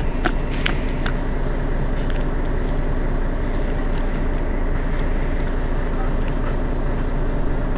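Mercedes-Benz Citaro city bus's diesel engine idling steadily while the bus stands still, with a few sharp clicks in the first second.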